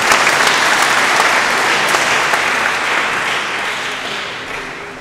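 Congregation applauding, the clapping loudest at first and dying away over the last couple of seconds.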